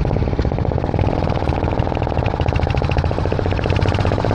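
Royal Enfield motorcycle exhaust popping in a rapid, even 'pat-pat-pat' beat while riding, loud enough to drown out speech.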